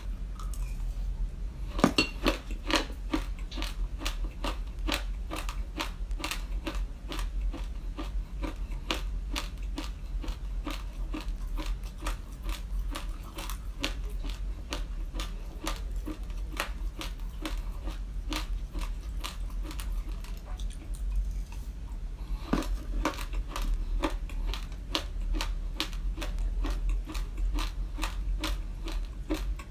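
Raw glutinous rice being crunched and chewed close to the microphone: a fast, continuous run of crisp cracks, several a second. It pauses briefly about a second in and again about three quarters of the way through, then starts again with a louder bite. A steady low hum lies underneath.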